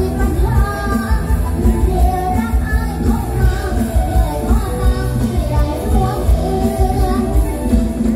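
Live mor lam band music through a large PA system, with a steady pulsing bass beat and a voice singing the melody.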